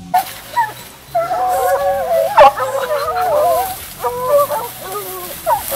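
A pack of hounds baying at a cornered leopard: several dogs bawl over one another in long, wavering howls, with one sharp, loud bark about halfway. Sustained baying like this is the sign that the hounds have the cat at bay.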